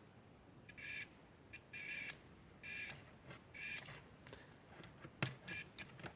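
Digital multimeter continuity beeper sounding as the test probes are touched together and pulled apart: a string of separate high-pitched beeps that become shorter and quicker near the end, with sharp taps of the probe tips. Each beep starts and stops with no lag, which the owner puts down to a simple comparator driving the beeper rather than a chip.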